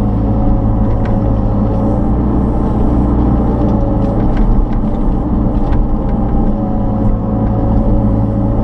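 Kubota KX161-3 mini excavator's diesel engine running steadily under work, with a thin whine that wavers slightly in pitch and a few faint clicks as the wood splitter attachment is worked.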